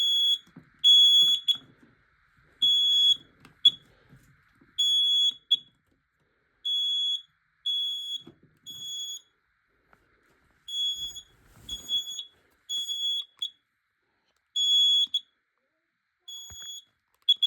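Smoke alarm sounding on test: a loud, high-pitched beep about once a second, falling into groups of three with longer pauses between, the temporal-three alarm pattern. Some beeps are louder than others.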